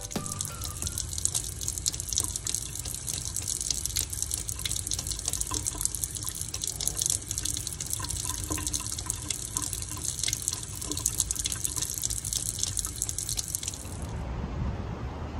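Kitchen faucet running a thin stream of water into a stainless steel sink, a steady splashing hiss that gives way to a quieter hiss near the end.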